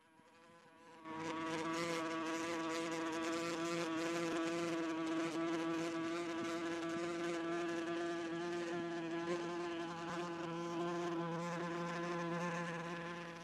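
A steady buzzing drone held at one pitch, rich in overtones with a hiss on top. It comes in abruptly about a second in and drops away near the end.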